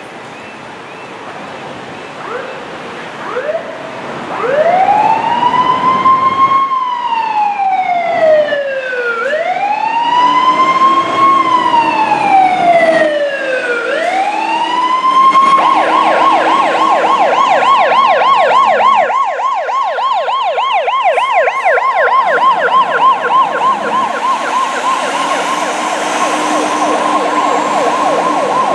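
Emergency vehicle siren: a few short chirps, then a slow wail that rises and falls three times. About halfway through it switches to a fast yelp that keeps going.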